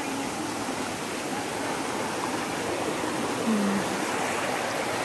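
Shallow rocky stream running over boulders: a steady, even rush of flowing water.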